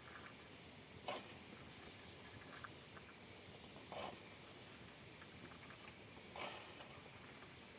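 Quiet ambience: a few short, soft rustles roughly every two and a half seconds over a steady faint high-pitched hiss.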